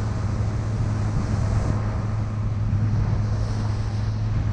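Motorboat engine running steadily while under way, a constant low hum, with wind buffeting the microphone and water rushing past the hull.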